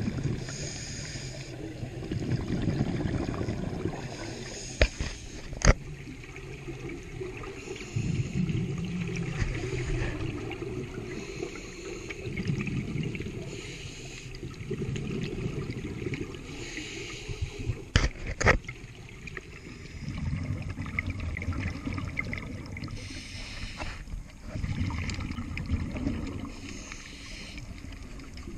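Scuba diver breathing through a regulator underwater: a hiss on each inhale, then a low rumbling burst of exhaled bubbles, repeating about every four seconds. A few sharp knocks come in between.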